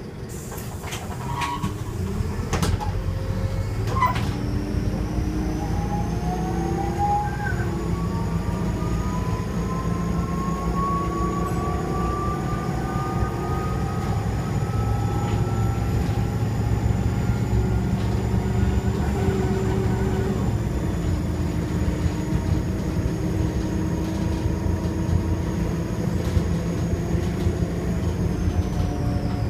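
2002 Optare Solo bus's turbodiesel engine running under way, with a high turbo whistle that comes in about four seconds in, holds steady and drops away near the end. A lower whine climbs slowly with speed. A few knocks sound in the first seconds.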